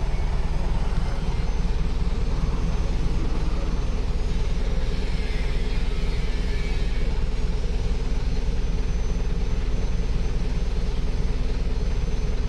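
Diesel truck engine idling with a steady low drone.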